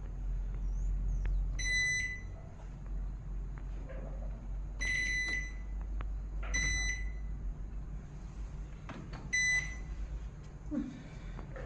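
Electronic beeps from a fully automatic washing machine's control panel: four short, high beeps a few seconds apart, over a low steady hum.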